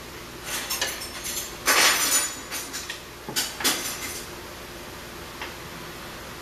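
Metal clinks and scraping of a coilover strut's lower bracket being worked onto the steering knuckle, with a longer, louder scrape about two seconds in and a few more clinks shortly after.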